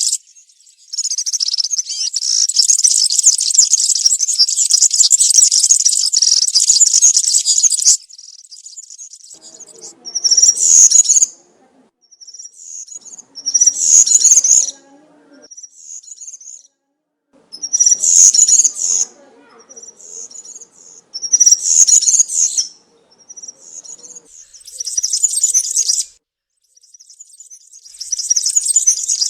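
European serin singing in fast, high-pitched song. One long unbroken song lasts about seven seconds, then shorter bursts of about a second follow every three to four seconds, with softer snatches of song between them.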